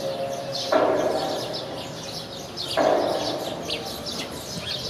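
A large gong struck twice, about two seconds apart, each stroke ringing out and slowly dying away.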